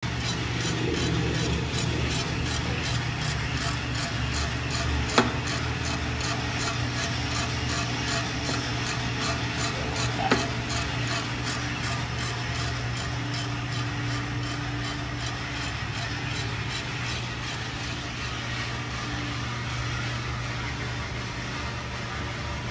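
Mill City MCR-20 propane coffee roaster running mid-roast: a steady hum of drum motor, fan and burner, with coffee beans tumbling in the rotating drum in a rhythmic swish about three times a second. There are two sharp clicks about five seconds apart.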